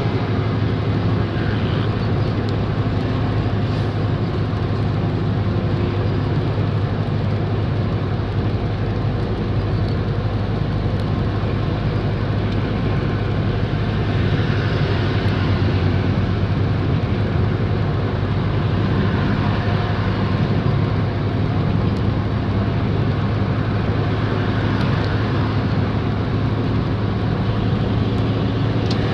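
Steady engine drone and road noise inside a large vehicle's cab while driving, with a strong low hum that holds at one pitch.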